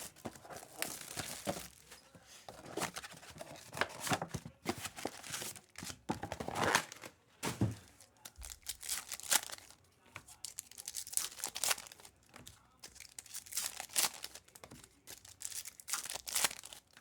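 Trading-card pack wrappers being torn open and crinkled, with a run of short, irregular rustles as the cards are handled.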